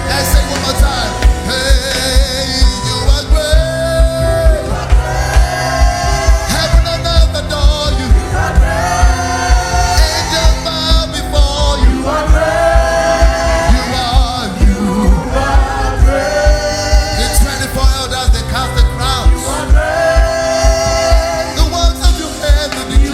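Gospel worship music: singers repeating short sung phrases over a band with a steady, driving low drum beat.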